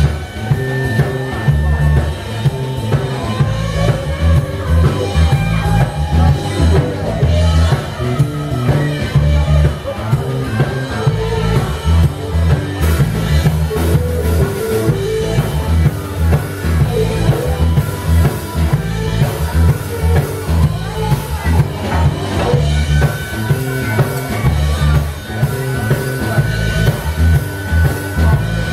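Live blues band playing an instrumental passage: electric guitar over electric bass and a drum kit keeping a steady beat.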